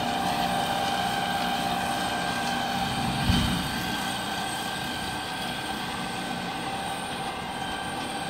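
Tractor with a Vigolo TST280 flail mulcher running under load as it mulches dry love grass: a steady machine drone with several held whining tones. A single thump about three seconds in, and the sound grows a little fainter afterwards as the machine moves away.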